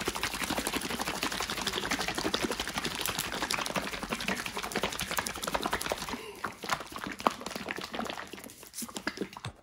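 A bottle of Raptor Liner bed-liner coating is shaken hard by hand to mix in the hardener just added. The liquid sloshes and rattles in rapid strokes, easing off and growing quieter after about six seconds.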